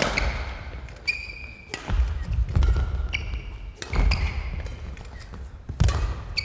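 Badminton rally: rackets strike the shuttlecock about every two seconds, each hit echoing in a large hall. Court shoes squeak sharply on the floor several times, and feet thud as the players lunge and move.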